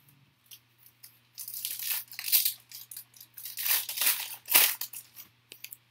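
Foil trading-card pack wrapper crinkling and tearing in the hands as it is opened, in a run of irregular rustles over a few seconds.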